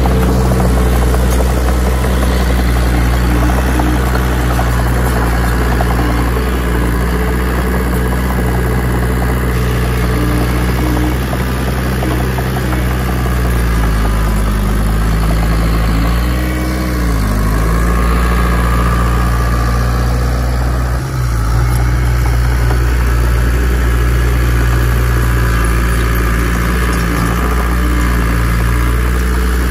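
Heavy diesel engine of a Caterpillar bulldozer running steadily. Its pitch dips and swings up and down briefly about halfway through, then settles again.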